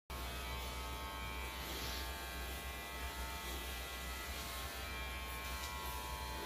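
Electric hair clipper buzzing steadily at the client's head, the hum cutting in abruptly just after the start.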